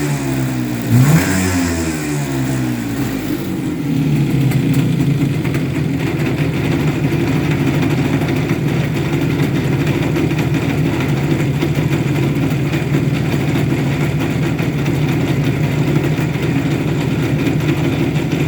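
IZh Jupiter 4 motorcycle's two-stroke twin engine: a quick blip of the throttle about a second in, the revs falling back, then running steadily at idle with a rattling knock from the piston pin. The knock comes from a worn small-end bushing in the connecting rod.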